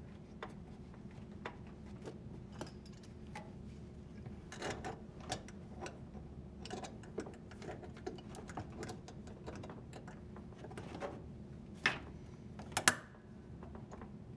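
Scattered small clicks, taps and rubbing of plastic and rubber as a washer's rubber drain bellow is pushed onto the tub outlet and its clamp is fitted, with two sharper snaps near the end, over a faint steady hum.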